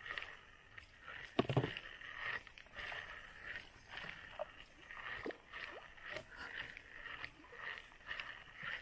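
Steady chirring of insects in tropical riverside forest, swelling and fading every second or so. A few short bird chirps come through, and there is a brief thump about a second and a half in.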